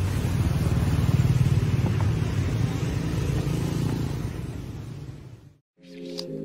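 Steady low rumble of street traffic, with the engines of passing motorbikes and cars, fading out about five seconds in. After a moment of silence, soft music with held notes begins near the end.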